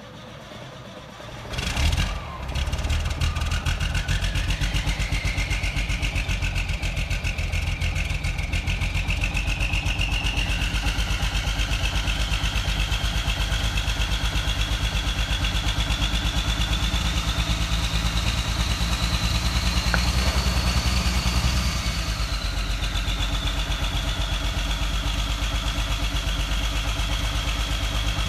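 Cold start of a 1986 Freightliner's 400 hp Big Cam Cummins inline-six diesel: the engine catches about a second and a half in and then runs steadily. A high whine climbs slowly over the first twenty seconds, then drops a little and holds as the running settles.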